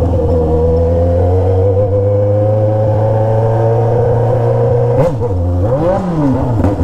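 Yamaha XJ6's 600 cc inline-four running through a 3-inch Atalla 4-into-1 straight pipe with no silencer, while the bike is ridden. The engine note climbs slowly, then gives a quick rev up and back down near the end.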